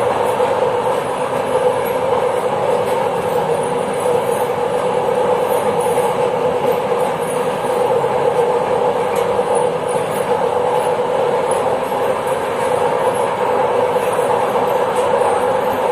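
Passenger train running at speed, heard from inside the rear of the last car: a steady rumble of wheels on rail with a constant droning hum.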